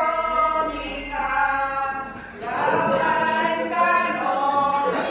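Unaccompanied singing: a slow melody of long held notes, with a short break a little after two seconds.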